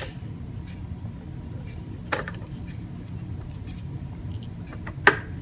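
Two sharp metallic clicks from hand tools being worked on a bolt in a vise, a lighter one about two seconds in and a louder one near the end, over a low steady hum.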